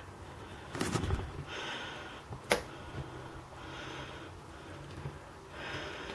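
Cream poured in a thin stream into a slow cooker of butternut squash soup: a soft trickling hiss that comes and goes, with a couple of sharp clicks in the first few seconds.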